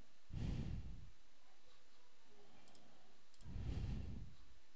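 Faint computer mouse clicks, with two soft rushes of noise on a close microphone.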